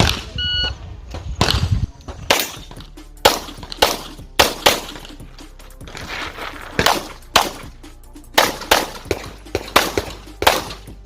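Shot-timer start beep, then a competition handgun firing a course of fire: sharp shots, mostly in quick pairs, with short pauses between strings.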